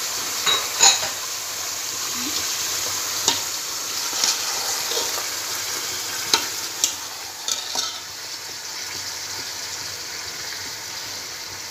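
Meat pieces coated in ginger-garlic paste and onion paste sizzling in hot oil in a metal pot as a metal spoon stirs them. Scattered clicks and scrapes of the spoon against the pot sound over a steady hiss.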